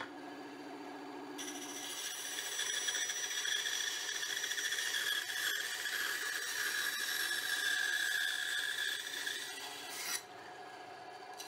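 Benchtop bandsaw cutting a slice of timber decking board. A steady high whine of the blade in the wood starts about a second in and eases off near the end.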